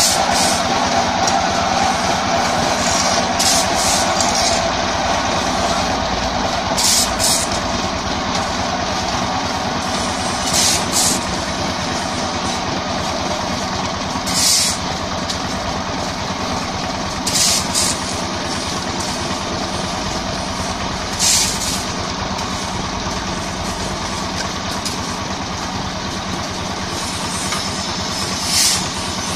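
Small single-cylinder diesel engine driving a QMY4-45 egg-laying brick machine, running steadily. Several brief scraping noises come and go over it, as brick mix is shovelled.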